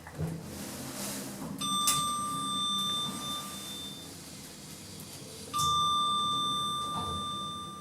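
Lift chime ringing twice, the same single tone each time, each ring held and fading over about two seconds, over the low steady hum of the moving lift car.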